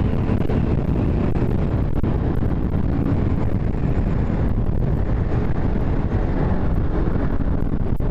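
Yamaha SZ motorcycle's single-cylinder engine pulling steadily under way, with wind rushing over the microphone. The engine runs smoothly without hesitation, its carburetor freshly tuned.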